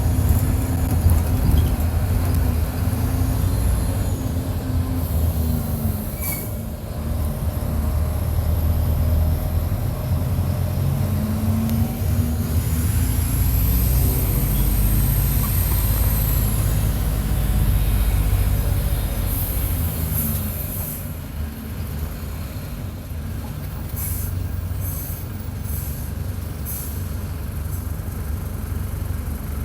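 Mercedes-Benz OF-1722 bus diesel engine running hard under load, close up. Its pitch rises and falls as the bus accelerates and changes gear, and it eases off about two-thirds of the way through.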